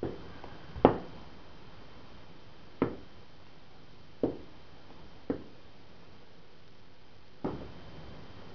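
Seven-inch (18 cm) stiletto-heeled platform pumps clicking on a ceramic tile floor: six slow, unevenly spaced steps, the loudest about a second in.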